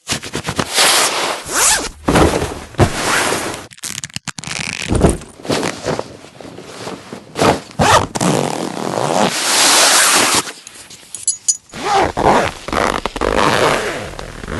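A string of clothing sound effects: zippers pulled in quick strokes, with fabric rustling and rubbing, each sound separate and of varying length.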